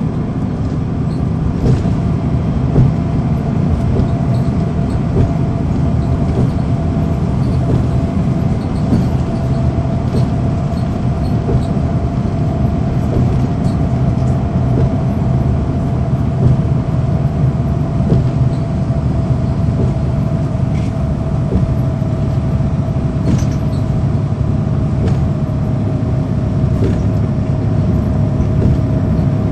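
Inside a 2009 NABI 416.15 transit bus, its Cummins ISL9 diesel runs steadily with a deep drone and a constant whine above it, while light clicks and rattles come and go.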